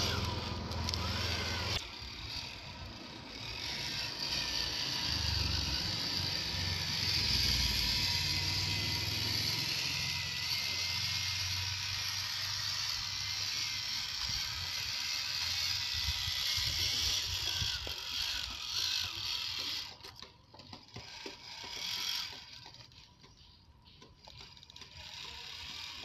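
Electric motor and gearbox of a homemade 1:10 scale RC crawler whining as the truck drives over mud and debris, with gear chatter. The sound drops away for a few seconds near the end.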